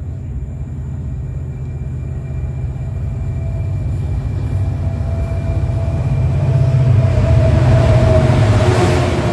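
GB Railfreight Class 66 diesel locomotive approaching on the line, its two-stroke V12 engine running with a low, heavy rumble and a steady whine. It grows steadily louder, peaking with a rush of wheel and rail noise near the end as it draws level.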